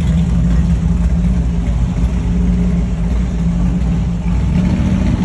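A vehicle engine idling steadily, a low even hum with no revving.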